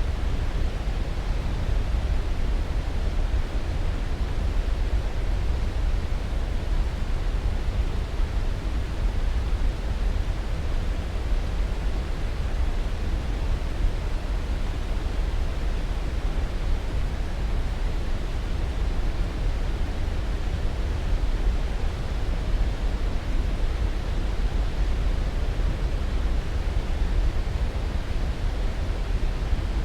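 Steady white-noise sleep track: an even, unchanging rushing hiss, heaviest in the low end, with no breaks or events.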